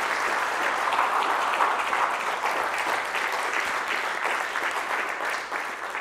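Audience applauding, steady and dying down near the end.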